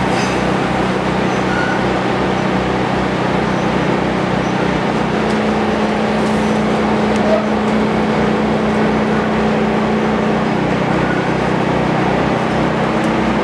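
Light rail train running at speed, heard from inside the car: a steady rolling rumble with a low motor hum.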